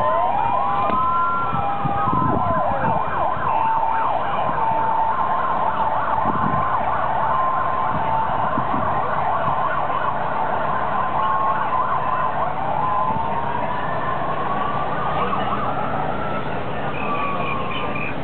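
Several police vehicle sirens sounding at once from a convoy: slow rising-and-falling wails, a two-tone siren stepping between two pitches, and a fast warbling yelp, over city street traffic.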